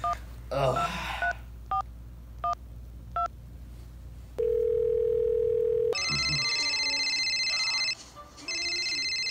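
Phone keypad tones beeping as a number is dialed, a series of short two-tone beeps, then a steady ringback tone for about a second and a half. About six seconds in, an electronic telephone ring trills for about two seconds, stops briefly and starts again.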